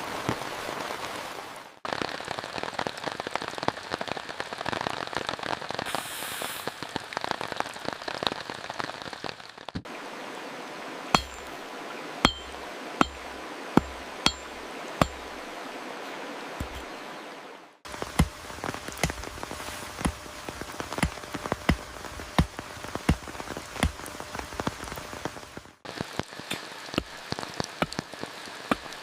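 Rain falling with many drops pattering on a surface, in several takes that change abruptly every eight seconds or so. In the middle stretch the rain is quieter and single heavy drips land with sharp, loud taps, several in a few seconds.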